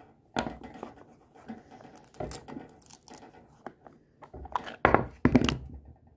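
Pink plastic toy packaging being unwrapped by hand: irregular crinkling and tearing, with two louder crackles close together near the end.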